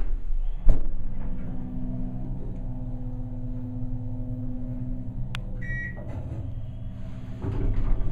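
Otis hydraulic elevator car: a sharp knock about a second in, then a steady low hum with a few held tones while the car travels. A short electronic beep sounds near six seconds in, and the noise grows louder near the end.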